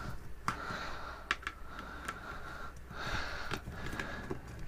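A few small, irregular plastic clicks and taps as the hinge covers on a hair straightener's plastic casing are worked loose by hand.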